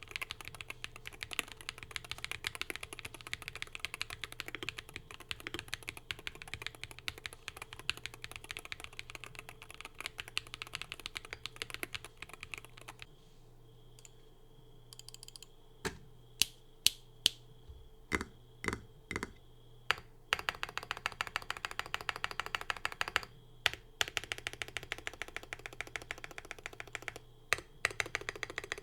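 Typing on a Wooting 60HE+ keyboard fitted with hand-lubed WS Dash HE magnetic switches, stock keycaps, tape mod and full foam in an AIM60 aluminium case. Fast, continuous typing stops for a few seconds about halfway through, then come about ten separate, louder single key presses, and then fast typing resumes.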